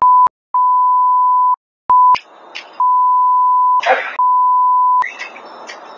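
A censor bleep: one steady, single-pitched beep tone, cut on and off several times, with short noisy bursts, like snatches of a voice, between the pieces. The bleeps stop about five seconds in, leaving a steady outdoor noise.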